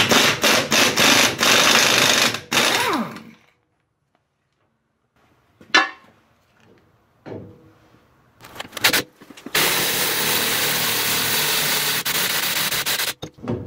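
Pneumatic impact wrench hammering on the wheel-hub flange's centre nut, in a run of about three seconds with brief breaks, its pitch falling as it stops. After a pause and a few short blips comes a steady run of about three and a half seconds, driving the screw of a three-jaw gear puller to press the hub flange off the axle shaft.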